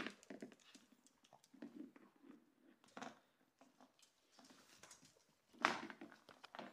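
Boston terrier puppies' claws clicking and pattering on a tile floor as they play with toys, with one louder scuffle about five and a half seconds in.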